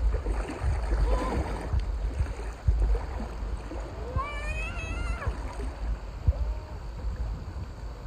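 Small waves washing and lapping in the shallows at a sandy beach, with wind buffeting the microphone.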